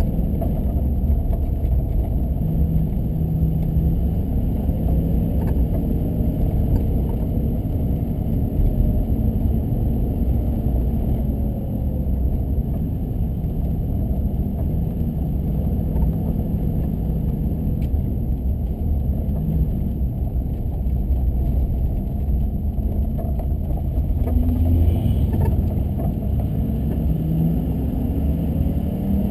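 A car being driven, with a steady low engine and road rumble and an engine note that rises and falls a little as it goes.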